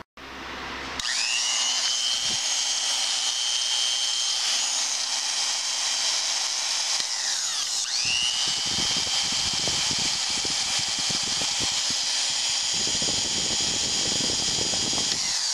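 Freshly cleaned and greased old Black & Decker 1/4-inch electric drill running with a steady high whine. Its brushed motor spins up about a second in, winds down around seven seconds, then is switched on again and runs until near the end.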